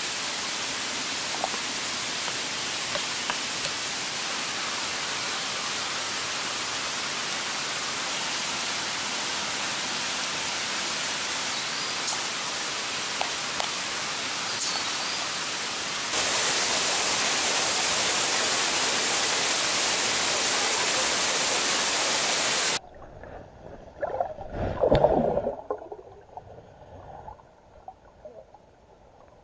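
Steady hiss of falling water in the rainforest, jumping louder about two-thirds of the way through. It then cuts off abruptly to a much quieter underwater sound with a brief gurgling rush of water.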